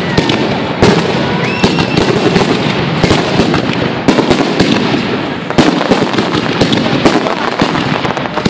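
Fireworks display: aerial shells bursting in quick succession, with many sharp bangs over a dense, unbroken crackle.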